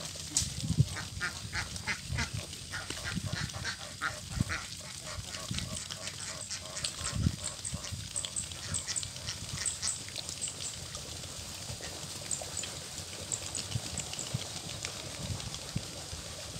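A flock of domestic ducks quacking as they walk together, with quick runs of short calls in the first few seconds that thin out as the flock moves off.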